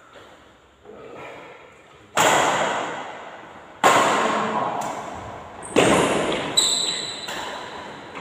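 Badminton rackets striking the shuttlecock in a rally: five sharp hits, the first about two seconds in, coming faster toward the end, each echoing in the hall.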